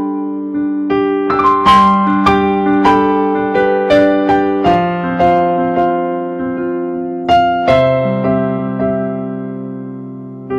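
Solo piano music: a slow melody of struck notes over held chords that ring and fade, the chord shifting lower partway through.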